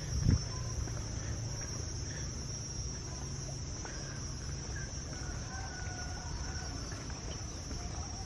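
Steady high-pitched buzz of crickets, with chickens clucking faintly in the second half. A short thump just after the start.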